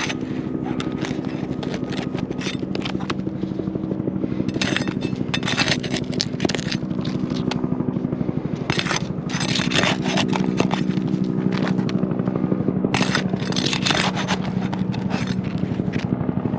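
Old, brittle asphalt 3-tab shingles being worked loose and their roofing nails pried out, with repeated bursts of scraping and crackling. A steady engine hum runs underneath.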